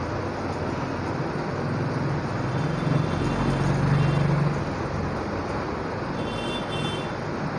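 Background road traffic: a steady rush of noise, with a vehicle's low hum swelling between about two and four and a half seconds in.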